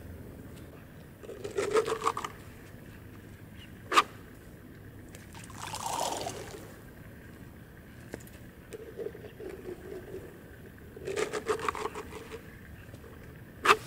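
Fishing tackle being handled while a spinning rod is put together: two short runs of rapid clicking, two sharp single clicks and a brief rustle.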